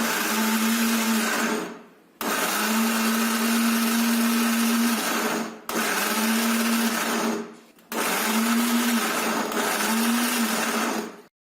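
Electric mixer grinder (mixie) running in four short bursts with brief stops between, its blade churning frozen chocolate custard ice cream. The pulsing on and off softens the set ice cream without thinning it.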